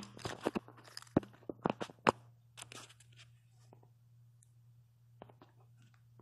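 Handling noise: a quick run of small clicks and knocks, as of objects being moved on a desk, over the first few seconds, then quiet with a low steady hum underneath.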